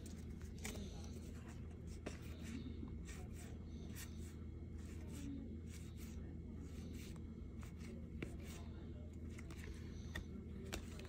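Baseball trading cards being thumbed and slid one by one through the hand: soft card-stock rubbing with scattered light flicks and taps, over a steady low hum.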